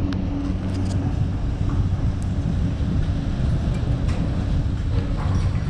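Detachable high-speed six-pack chairlift terminal running: a steady low mechanical hum of the bullwheel and terminal machinery as chairs roll through, with a few faint clicks.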